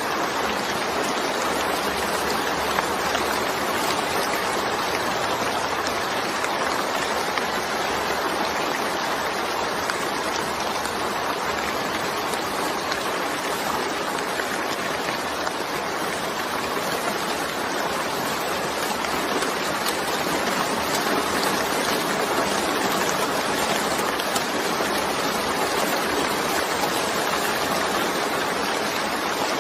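Steady rainfall, a dense, even hiss that holds at one level throughout, with no thunder.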